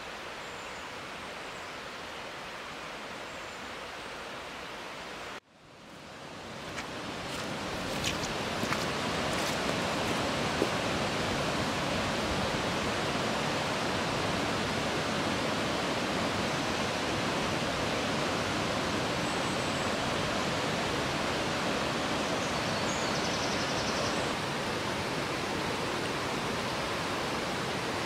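Steady rush of a fast-flowing woodland river and its small waterfalls. It cuts out abruptly about five seconds in, then fades back in louder over the next few seconds and stays even.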